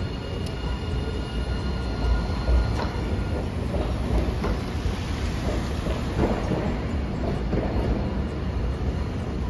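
Hiroden 'Green Liner' articulated street tram running along street track as it pulls away, a steady low rumble with a few wheel clacks over the rails in the middle.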